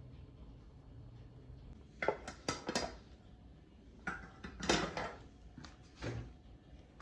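Dishes and a spoon clinking and scraping as dog food is dished out into bowls. The clatter comes in three bursts, about two seconds in, around four to five seconds (the loudest), and briefly near six seconds.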